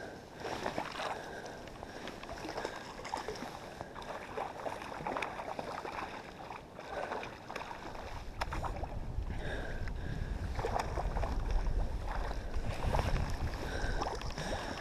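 Water splashing and line swishing as a hooked trout is played in on a fly line by hand. From about eight seconds in, a low rumble of wind on the microphone is added.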